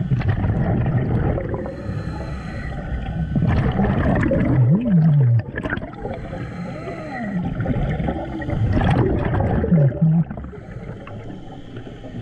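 Scuba diving heard underwater: the regulator's exhaled bubbles gurgling, with low moaning tones that rise and fall in pitch several times.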